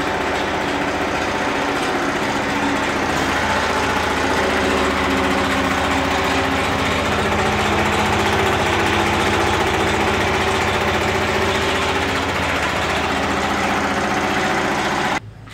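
Compost shredder running with nothing fed in, its rotor driven by V-belts from an electric motor: a steady mechanical whir with a hum. It cuts off abruptly just before the end as the motor is switched off.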